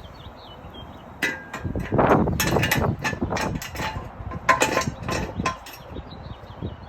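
A run of metal clicks, clanks and scrapes from the truck's factory jack being worked to lift the front end. It is loudest about two to three seconds in and dies away after about five seconds.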